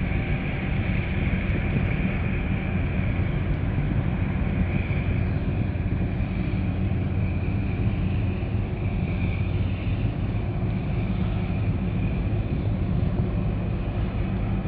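Steady low engine rumble from a large container ship and the harbour tug at its bow, both under way.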